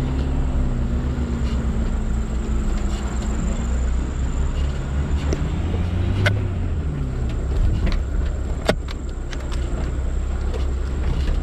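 Motor vehicle driving on a rough off-road track: the engine runs with a heavy low rumble, its pitch rising and falling as the revs change. Two sharp knocks come about six and nine seconds in.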